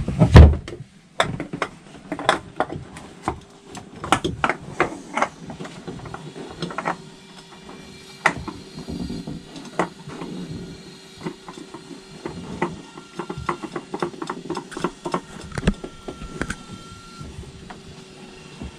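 Irregular clicks, knocks and scrapes of a spin-on oil filter being screwed by hand onto a Nanni HE 4.150 diesel engine, with one loud knock right at the start.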